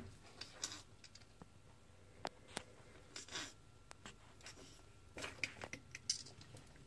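Black-and-white tegu chewing a large rat: scattered wet crunches and sharp clicks of its jaws on the carcass, with brief scratchy rustles as it shifts on the bark mulch. The sounds are faint, with short clusters about half a second in, around three seconds in and near the end.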